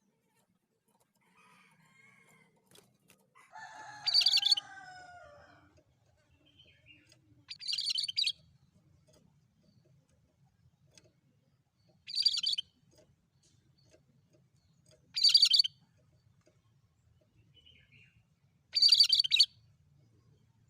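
Cucak kerinci calling: five short, harsh, high-pitched bursts at intervals of about three to four seconds. About four seconds in, a lower call falls in pitch beneath the first burst.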